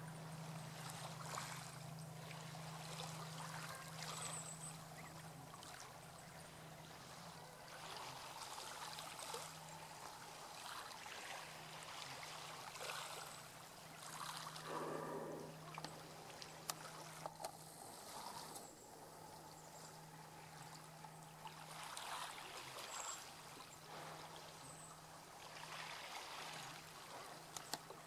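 Faint water lapping and trickling, with a steady low hum underneath and a brief louder rush about halfway through.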